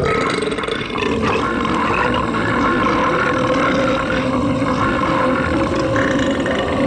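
A long, drawn-out belch from an animated character, loud and unbroken, its pitch wavering throughout.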